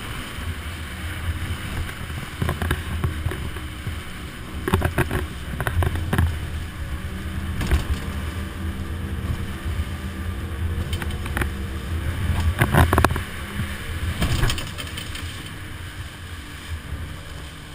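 Motorboat running under way: a steady low engine hum over the rush of water along the hull. Sharp thumps come every few seconds, loudest about two-thirds of the way through.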